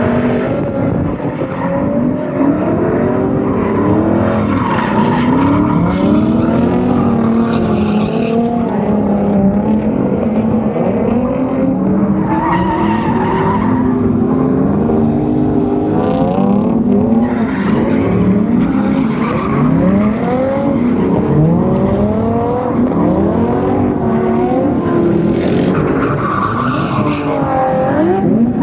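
Drift cars on track, with engines revving up and falling back over and over, the pitches of more than one engine overlapping, and tires skidding and squealing.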